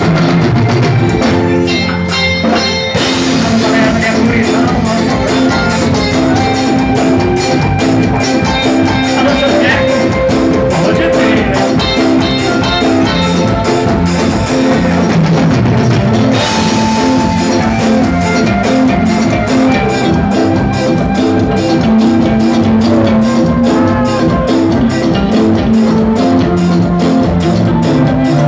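A band's amplified dance music, played loud through a PA, with a drum kit keeping a steady beat and electric guitar.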